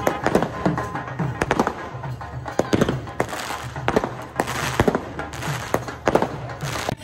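Firecrackers going off in a string of sharp, irregular bangs, about two a second, over music with drums.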